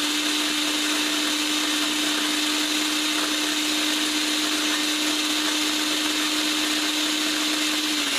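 Countertop blender motor running steadily on its high setting, blending a jar of liquid, with a steady hum. About eight seconds in, the hum drops in pitch as the blender is switched to low.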